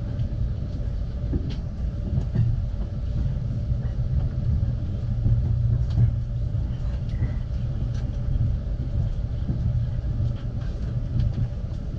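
Amtrak Cascades passenger train running along the tracks, heard on board: a steady low rumble with scattered faint ticks.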